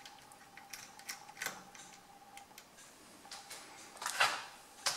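Chainsaw chain clinking against steel magnetic hooks and the bar as a chain is hung: a scatter of light metallic clicks and rattles, the loudest about four seconds in.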